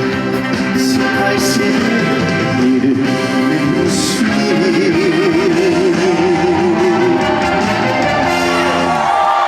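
Live band music with electric guitar and a wavering lead melody in the middle, playing a song to its close; the low end of the band cuts off about nine seconds in.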